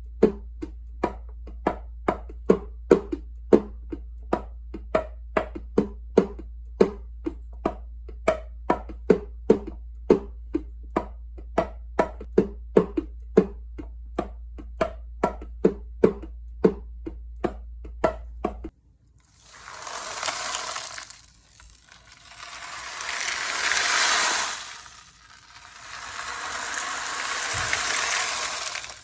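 Quick, light strikes, each ringing briefly, repeat at about two a second over a low hum. About nineteen seconds in they stop suddenly, and three long swells of rushing, hiss-like noise follow.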